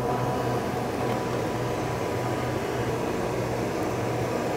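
Steady mechanical hum and whir of an original Link Trainer flight simulator running on its vacuum-operated drive. The low hum pulses slightly as the mechanism works.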